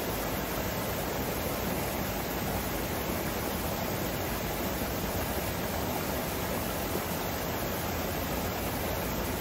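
Steady rush of running and falling water from a landscaped rockwork fountain into a shallow pool.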